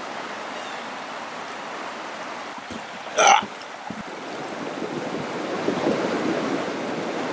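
River water rushing steadily over stones, growing a little louder in the second half. About three seconds in comes one short, loud call that sweeps up and back down.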